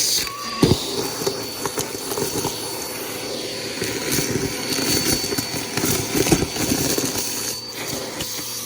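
Bissell PowerForce Helix upright vacuum cleaner running with a steady motor whine, with irregular clicks and rattles throughout.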